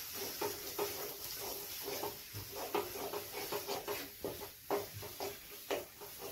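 Wooden spatula stirring and scraping thick masala paste around a metal kadai in repeated strokes, about two a second, over a steady sizzle of the masala frying in oil.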